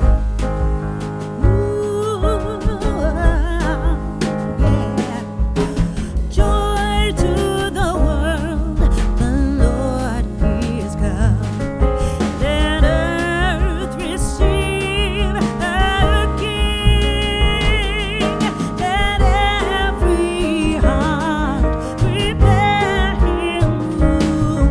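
Background music: a song with a singing voice over instruments and a heavy bass line.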